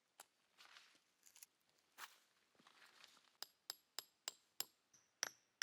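Combination axe-hammer striking a tent peg to drive it into soft clay ground. After some soft rustling, a steady run of sharp taps, about three a second, starts a little past halfway and keeps going.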